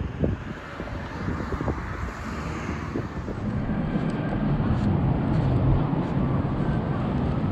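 Outdoor background noise: a steady low rumble that grows louder and fuller about three and a half seconds in, with a few faint knocks near the start.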